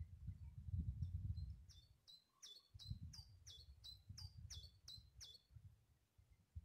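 A small songbird singing a quick series of about eleven short, high repeated notes, roughly three a second, starting a couple of seconds in and stopping about a second before the end, over a faint low rumble.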